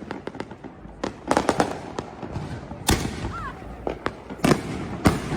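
Fireworks and firecrackers going off: a rapid string of sharp cracks and pops, with a few louder bangs, the biggest about three seconds and five seconds in.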